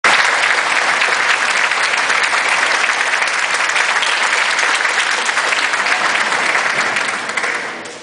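Audience applauding: many hands clapping steadily, dying away over the last second or so.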